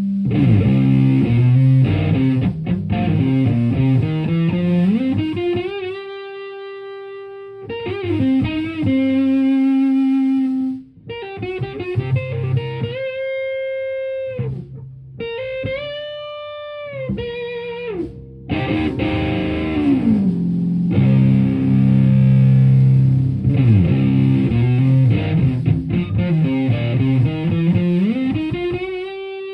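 Stratocaster electric guitar through a Violet Ram's Head Big Muff fuzz pedal and a Marshall Plexi head into a 4x12 cabinet, playing heavy fuzz riffs and lead lines. Chords alternate with long sustained notes that are bent up and held with vibrato.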